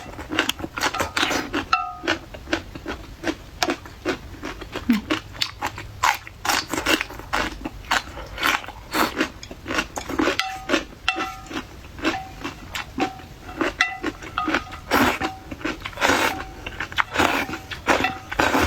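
Close-miked chewing of crunchy food: a dense, uneven run of crisp bites and crunches.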